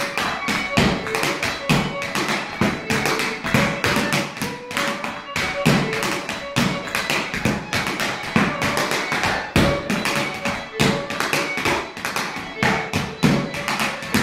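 Step-dance shoes tapping out a rapid, unbroken rhythm on boards laid over the floor, with heavier stamps about once a second, over accompanying music.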